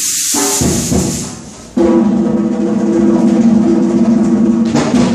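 Drumming and music from a live stage performance: a loud noisy burst at the start, then a held pitched note from about two seconds in that breaks off near the end.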